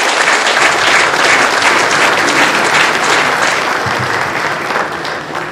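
Congregation applauding after the a cappella song ends, steady clapping that begins to fade near the end.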